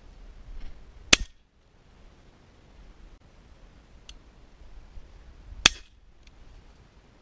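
Two shotgun shots about four and a half seconds apart, each a single sharp crack with a short tail.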